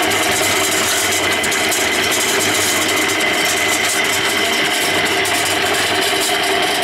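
Belt-driven concrete mixer running steadily, its drum turning while sand is shovelled in to make mortar.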